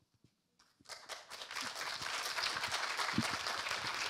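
An audience applauding, starting about a second in after a moment of silence and settling into steady clapping.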